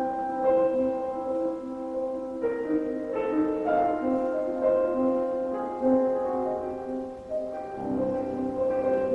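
Piano playing slow music, with held chords that change every second or so.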